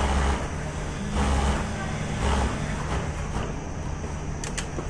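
Industrial sewing machine topstitching a T-shirt neckline, running in three short bursts about a second apart over a steady low hum, with two sharp clicks near the end.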